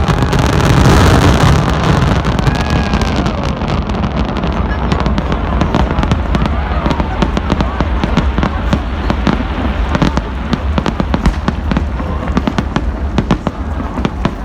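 Fireworks going off: a loud blast and rumble near the start, then a dense run of sharp crackling pops through the rest.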